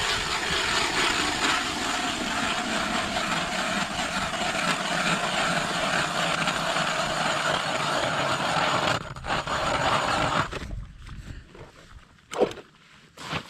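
Powered ice auger boring a hole through lake ice: a steady motor drone with cutting noise that stops about ten and a half seconds in. A sharp knock follows a couple of seconds later.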